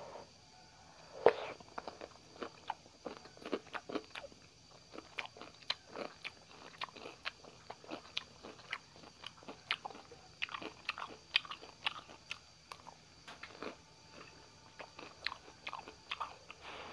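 Close-up chewing of a mouthful of Batangas lomi noodles: a run of short, wet mouth clicks and smacks, the loudest about a second in.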